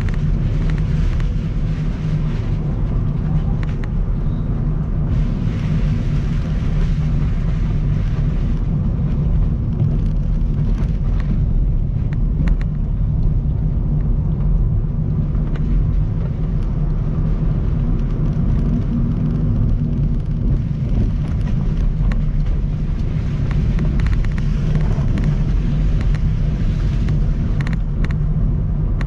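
Steady low road and engine rumble of a car driving through light rain, heard inside the cabin, with tyre hiss on the wet road and a few scattered light ticks.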